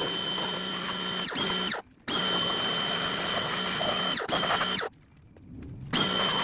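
Compressed-air blow gun blowing off a freshly cleaned engine block: a steady hiss with a high whistle, in about four bursts that start and stop abruptly, the whistle dipping briefly in pitch as the trigger is let off.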